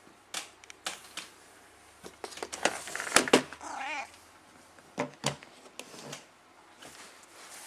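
A domestic cat meows once, briefly and wavering, about four seconds in, begging for food. Light clicks and taps come and go around it, thickest just before the meow.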